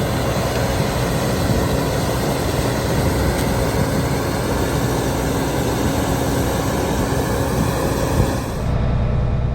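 Combine harvester machinery running loud, a dense rushing noise that cuts off sharply about 8.7 s in, leaving a lower, steady engine hum.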